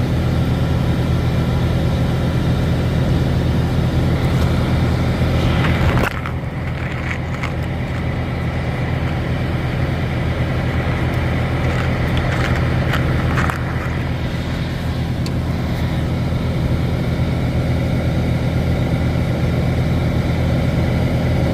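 Freightliner Cascadia truck's engine idling with a steady low hum. A sharp click comes about six seconds in, and the hum is slightly quieter after it.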